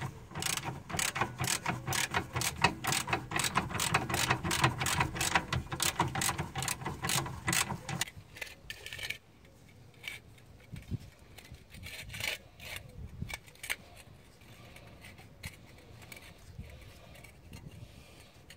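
Metal hand tool worked in a steady rhythm on the car's rear suspension: sharp clicks about three or four a second over a grinding undertone, for about eight seconds. Then it stops, leaving a few scattered clicks and knocks.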